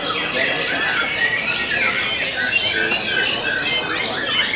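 Several caged white-rumped shamas (murai batu) singing at once in a contest: a dense, steady chorus of overlapping whistles, trills and chirps.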